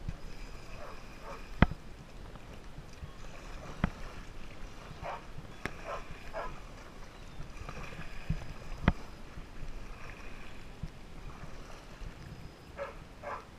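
Kayak being paddled: a double-bladed paddle dipping and splashing in the river, with water running along the hull. Several sharp knocks come through, the loudest about one and a half seconds in and another just before nine seconds.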